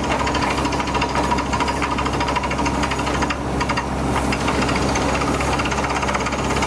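Beretta T44 borehole drilling rig running steadily under load while drilling, its engine with a rapid, even clatter over it.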